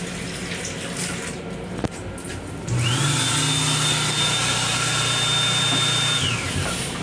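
Water from an M7 railcar lavatory faucet running into the sink. About three seconds in, a motor in the lavatory starts with a sudden rush of air, a steady high whine and a low hum, runs for about three and a half seconds, then winds down.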